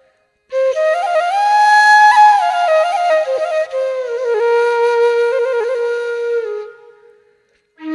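Background music: a solo flute playing a slow melody of held, ornamented notes. One phrase starts about half a second in and fades out about a second before the end, and another begins right at the end.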